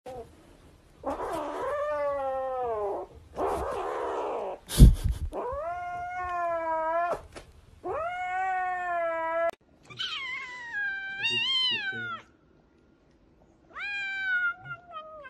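Cats yowling in long, drawn-out meows: a grey kitten gives four calls, the first two rough and hissy, with a sharp knock about five seconds in. Then a white cat gives three higher, wavering meows.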